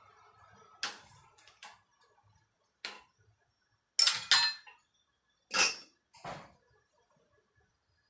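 Stainless steel cookware clinking and clattering: a lid being put on a soup pot and utensils set down on the stove, about six sharp knocks, the loudest a pair about four seconds in.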